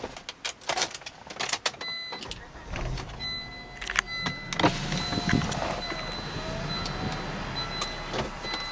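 1999 Volvo S70's five-cylinder engine being started with the key: a few clicks and short warning tones, then the engine cranks and catches a few seconds in and settles into a steady idle.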